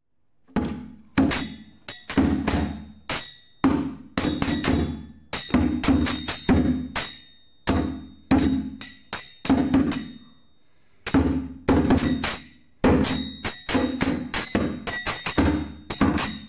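Instrumental opening of a Bulgarian folk song: heavy drum strikes in an uneven rhythm, each ringing on, with high bell-like tones over them and a short pause about ten seconds in.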